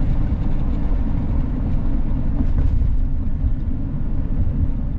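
Steady low rumble of tyre, road and engine noise from a van driving at highway speed, easing slightly as it moves onto an exit ramp.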